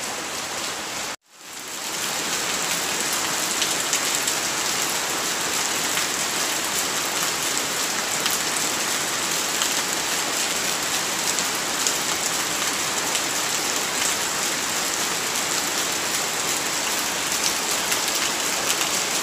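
Steady rushing of water from a small stream cascading over rocks. It cuts out briefly about a second in, then fades back up.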